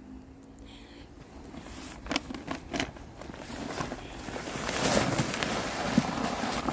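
Potting soil rustling and crackling as it is handled for buried potatoes, starting with a few light knocks about two seconds in and building to a steady rustle over the last few seconds.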